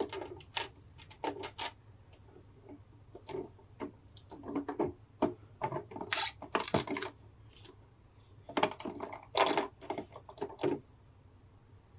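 Thin clear plastic blister tray crinkling and clicking as fingers press and handle it. The crackles come in irregular bursts with short pauses between them.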